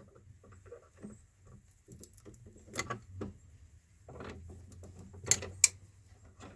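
Insulated wires being bent and pushed aside inside a metal switch box: faint scraping and rustling with a few sharp clicks and taps, the two loudest close together about five seconds in.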